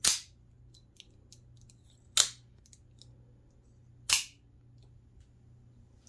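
Out-the-front automatic knife snapping its blade out and back: three sharp metallic clacks about two seconds apart, with faint ticks between them.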